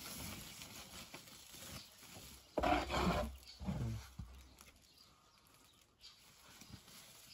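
Cassava flour being scooped by hand and poured into a white plastic sack, the sack rustling. There is a louder pour about two and a half seconds in, followed by a brief murmured voice.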